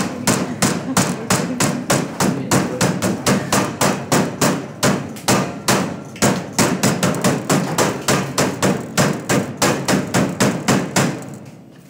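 Wooden meat mallet pounding a butterflied chicken breast under cling film to flatten it, a quick steady run of about four dull blows a second that stops near the end.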